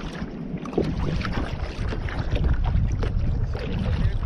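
Wind buffeting the microphone in a steady low rumble, over water lapping and splashing irregularly against a kayak's hull.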